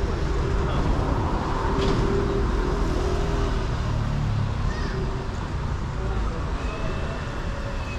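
City street traffic: the steady rumble of passing cars and other vehicles.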